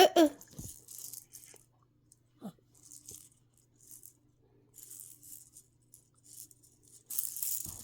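Toy shaker rattling in short, irregular shakes, growing denser and louder near the end. A brief voice sound right at the start is the loudest moment.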